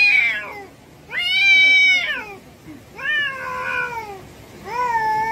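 Cats in a hostile face-off yowling: a string of four long, drawn-out yowls, each a second or more and sliding down in pitch at its end, the later ones lower. Threat yowling, the warning calls that come before a cat fight.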